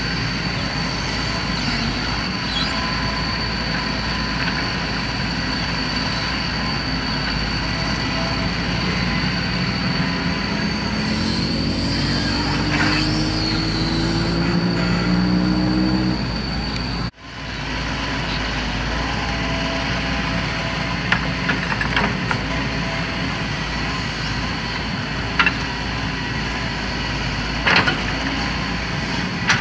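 Heavy excavator diesel engine running steadily, with its pitch rising as the engine works harder for several seconds before a sudden break. Afterwards the engine runs on with scattered sharp knocks and clanks.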